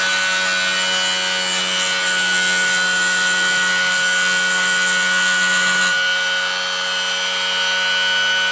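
Homemade pulse motor spinning at high speed, about 6,000 RPM, with a steady high whine. A rubbing, scraping noise runs over it and stops suddenly about six seconds in.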